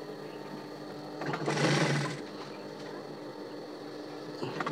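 Sewing machine stitching through non-woven bag fabric in two short bursts, one about a second in and another starting near the end, over a steady hum between them.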